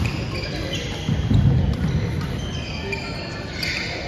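Sports-hall badminton sounds on a wooden gym floor: a sharp racket hit on a shuttlecock right at the start, short high squeaks of court shoes, and dull thumps of feet or bouncing about a second in, all echoing in the large hall.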